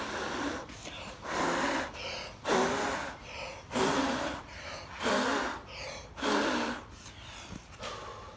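A person blowing hard by mouth in repeated forceful breaths, about one a second, to blow water off a car as a stand-in for compressed air; the last blow near the end is weaker.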